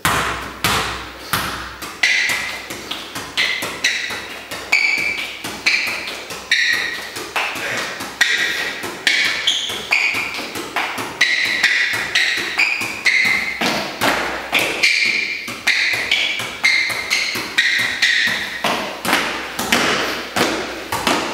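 Football being juggled and kicked in freestyle tricks, with a steady run of taps and thumps at about two touches a second. Each touch leaves a short ringing ping from the ball.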